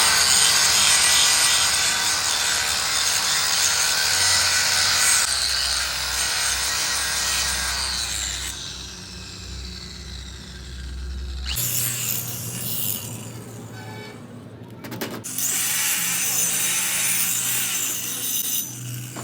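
Power-tool noise of metal being worked on truck axle parts. It runs as several spliced segments that change abruptly, with a low hum dominating for a few seconds in the middle.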